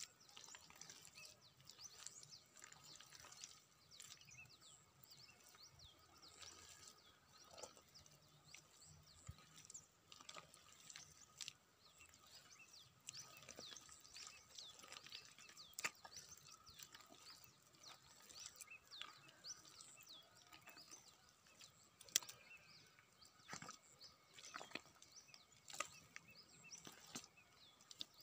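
Faint rural ambience: many quick high bird chirps over a steady high hum, with scattered wet clicks and squelches of hands digging through soft mud, one sharper click about three-quarters of the way through.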